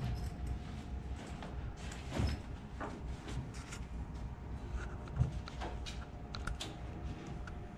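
A steady low hum with a faint steady tone over it, and scattered light clicks and knocks, one a little louder about five seconds in.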